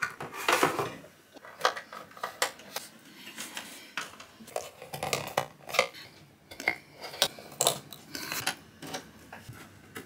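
HDMI and USB cable plugs being handled and pushed into the ports of a KVM switch: irregular plastic clicks, taps and rattles.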